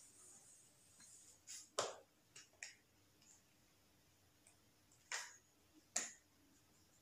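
A handful of short, sharp clicks and taps from a calculator and a whiteboard marker being handled, about six in all. The loudest come about two seconds in and again near the end.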